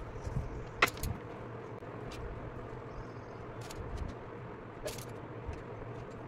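Wooden ice cream sticks being handled and set down on a tabletop: a few light clicks and taps, the sharpest just under a second in, over a steady background hum.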